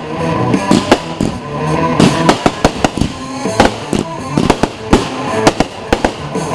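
Fireworks going off in rapid succession, many sharp bangs and cracks a second, over music.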